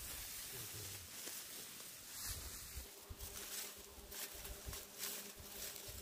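A flying insect buzzing at a steady pitch, starting about three seconds in.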